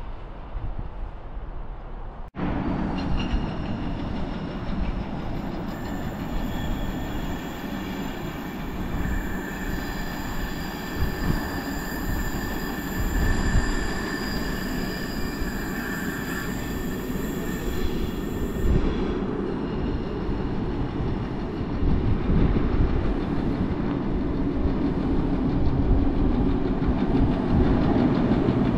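Freight train headed by two Class 90 electric locomotives approaching on the rails: a steady rumble that grows louder toward the end, with high whining tones over the middle stretch.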